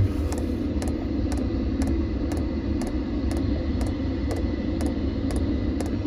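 Diesel air heater's fuel dosing pump ticking in an even pulse, about two clicks a second, as it meters fuel to the running heater. Under it runs the steady low hum of the heater's fan and burner.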